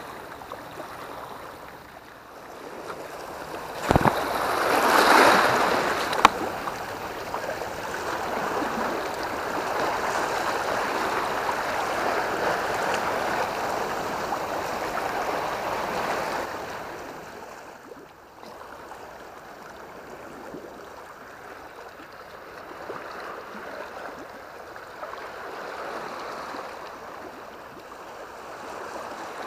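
Small sea waves washing and splashing against a rocky shore, a steady rushing noise. A sharp knock about four seconds in is followed by a louder surge of water, and the wash stays louder until about sixteen seconds in, then eases.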